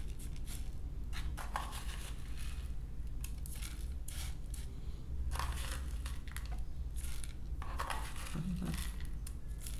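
A plastic spoon scooping dry, granular bird feed out of one plastic tub into another: repeated short scrapes and taps of spoon against plastic as the grains are poured in.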